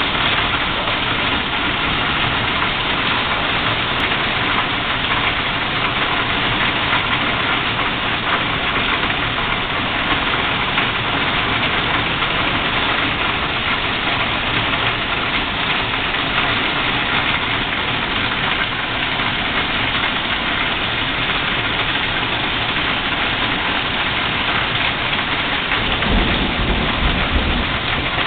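Heavy rain falling steadily on and around a covered porch, a dense even hiss. Near the end a low rumble comes in for a couple of seconds.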